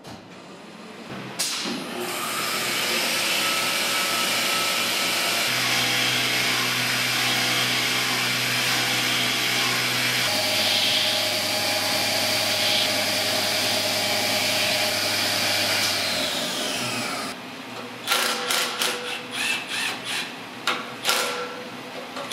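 Fadal VMC 15 vertical machining center running its spindle and cutting a steel knife blade with a small end mill: a loud, steady machining noise with a hum that drops in pitch about ten seconds in, stopping after about seventeen seconds. Then a cordless impact driver undoes the fixture screws in several short bursts.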